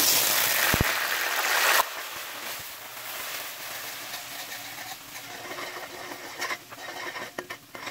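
A splash of water poured into hot oil with fried onions and ginger-garlic paste in a steel pot, sizzling loudly, then dropping suddenly to a quieter sizzle about two seconds in. A steel spoon stirs the mixture, with a few clicks of spoon on pot near the end.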